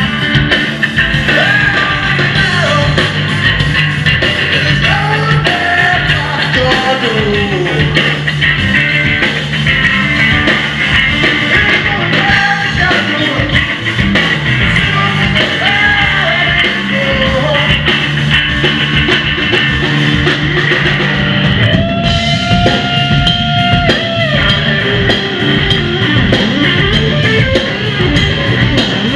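Rock band playing live: electric guitar, bass guitar and drum kit, with a man singing. About two-thirds of the way through, the cymbals drop out and a single note is held for about two seconds.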